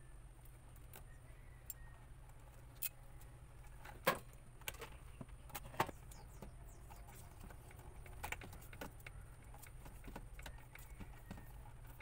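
Scattered sharp clicks and taps of lineman's pliers and hands working copper wire splices in a plastic junction box, with a roll of electrical tape being handled; the two loudest clicks come about four and six seconds in.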